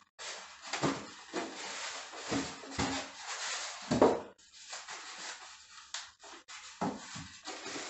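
Expanded polystyrene packing blocks being pulled apart and handled, rubbing and scraping, with irregular knocks as pieces are set down on a wooden table; the loudest knock comes about four seconds in.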